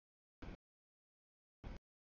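Two short bursts of noise, each about a sixth of a second, with dead silence between: the camera's audio feed is cutting in and out, letting through only brief fragments of a passing freight train.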